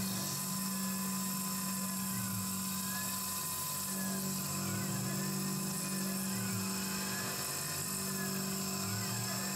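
Tormach PCNC 1100 CNC milling machine face-milling a metal plate with a large cutter under flood coolant. A steady machine hum whose low tone shifts every second or two, with faint whines that rise and fall.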